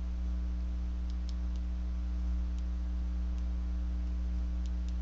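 Steady low electrical mains hum from the recording chain, with a few faint scattered ticks of a stylus tapping on a tablet screen while handwriting.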